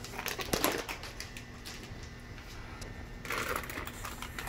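Plastic fish-shipping bags crinkling and rustling as they are handled and pulled out of a plastic box liner. The rustling gets louder about three seconds in.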